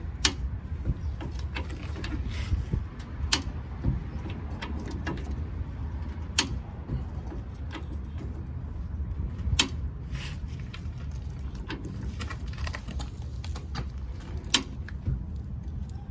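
Antique Walker Badger 117 car jack being worked to lift a truck: irregular metal clicks and clanks from its lifting mechanism, with a sharp clack every few seconds, over a steady low rumble.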